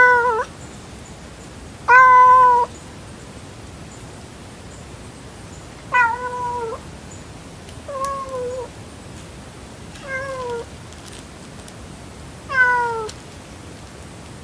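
A domestic cat meowing over and over: six meows about two seconds apart, each dropping in pitch at its end, the first two the loudest.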